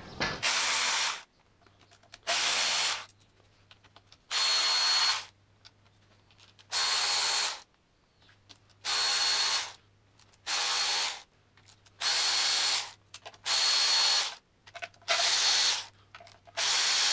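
Handheld power driver spinning out the oil pan bolts of a Suzuki G16B engine, in about ten short runs of under a second each, a thin high whine in several of them.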